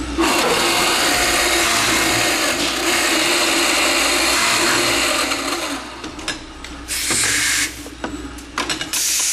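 VX CNC vertical boring machine running its spindles and machining a solid wood part, a loud steady cutting noise that stops about six seconds in. Several shorter bursts of machine noise follow near the end.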